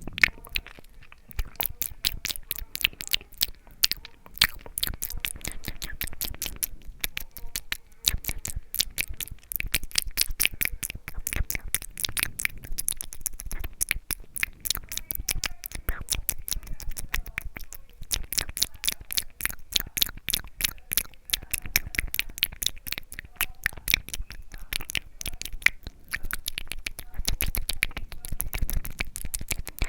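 ASMR mouth sounds close to the microphone: a quick, continuous run of wet clicks and smacks from the lips and tongue, several a second.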